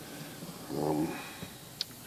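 A man's short, low wordless murmur about a second in, then a single sharp click near the end, over quiet room tone.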